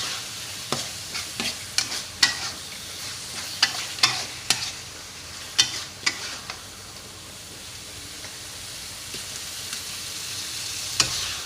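Jengkol in spicy rica paste sizzling as it fries in a pan, with a spatula clacking and scraping against the pan in irregular strokes. The stirring stops about halfway through, leaving the steady sizzle, and there is one more clack near the end.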